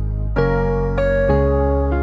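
Slow, soft background music on a piano-like keyboard, with new notes struck three times in quick succession.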